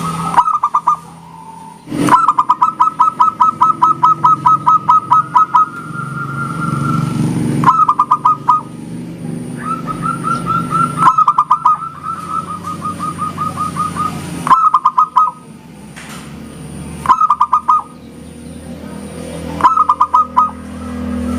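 Zebra dove (perkutut) song: repeated phrases of rapid, evenly spaced short coos. Some are brief bursts, others long runs of about six notes a second, with short pauses between phrases.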